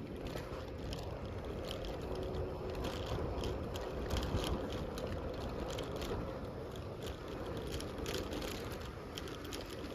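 Bicycle being ridden: a steady rumble from the tyres and air, with scattered light clicks and rattles from the bike throughout.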